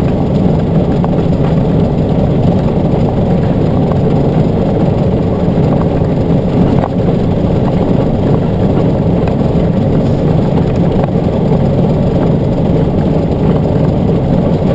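Steady engine and road noise of a vehicle cruising on a highway, heard from inside the cab.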